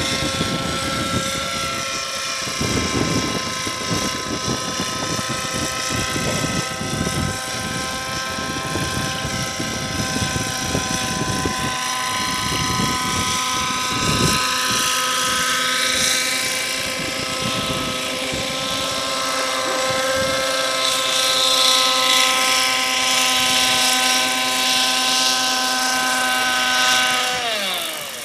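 Radio-controlled model helicopter hovering, its motor and rotor giving a steady high-pitched whine with several even overtones. Under it is a gusting low rumble of wind on the microphone, and the whine dips in pitch near the end.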